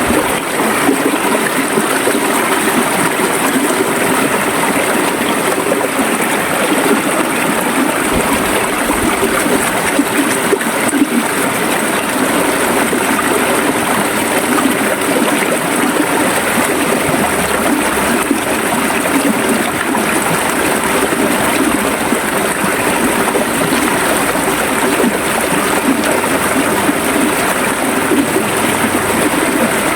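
River water flowing and gurgling in a steady, even rush.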